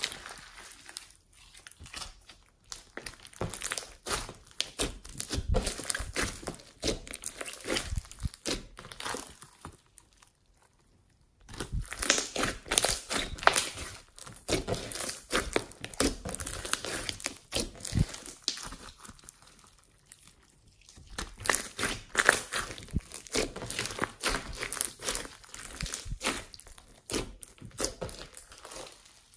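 Hands squeezing and kneading sticky blue slime packed with foam beads, giving dense, irregular crackling and popping as air pockets and beads squish. The sound stops briefly about ten seconds in, then starts up again.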